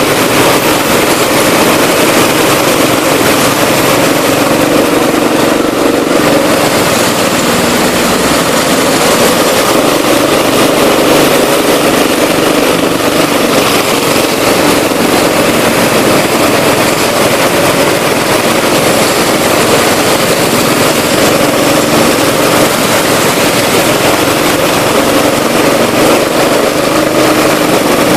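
Rental go-kart's small engine running steadily and loudly under the driver, with other karts driving close alongside.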